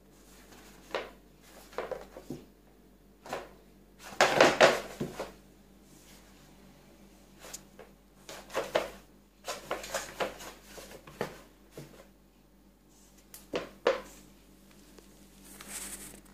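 Scattered light knocks, clicks and clatters of a cat playing with objects, with the loudest burst of rattling about four seconds in.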